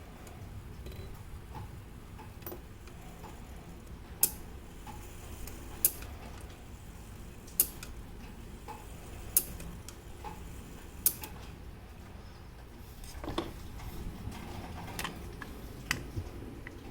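Mauthe grandfather clock movement ticking. The beats are alternately loud and faint, a sharp tick about every second and a half with a softer one in between. A few irregular light knocks follow in the second half.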